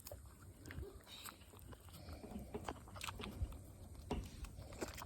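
Bottle calf sucking on a milk bottle's rubber nipple: faint, irregular sucking and smacking clicks.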